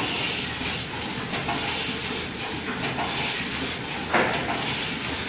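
Automatic bag-packing machine running: a steady hissing mechanical noise that swells in a regular cycle about every one and a half seconds, with one sharp, louder burst about four seconds in.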